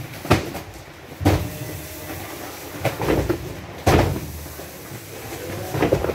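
Cartons of cup drinking water being unloaded and set down, making a series of irregularly spaced thumps and knocks, the loudest about four seconds in.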